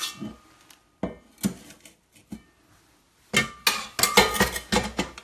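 A spoon clinking against a glass mixing bowl and a stemmed dessert glass while cream is scooped and spread: a few light clinks, then a busy stretch of clinks and knocks near the end.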